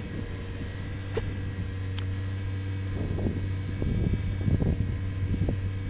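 A vehicle engine running with a steady low hum, with a couple of faint ticks and some irregular rustling noise over it.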